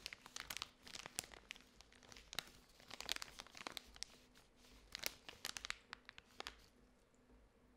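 A clear plastic zip-top bag with a paper towel inside, crumpled and squeezed by hand: quiet, irregular crinkling crackles that die away about six and a half seconds in.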